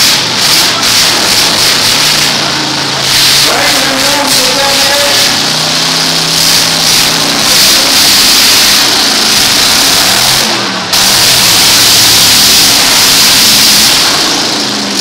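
Engines of demolition derby pickup trucks running and revving loudly in the arena, mixed with crowd voices. The din gets suddenly louder about eleven seconds in.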